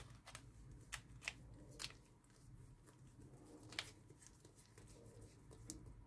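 Faint crinkling and scattered clicks of a plastic piping bag full of churro batter being pressed and handled to squeeze out the trapped yeast gas.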